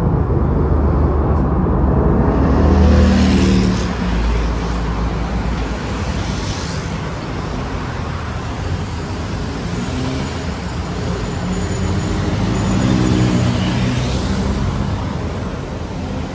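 City buses' diesel engines running as they pass in heavy street traffic. The sound is loudest about three seconds in and swells again about thirteen seconds in.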